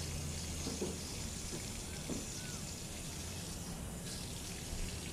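Water running steadily over a low hum, with a few faint clicks.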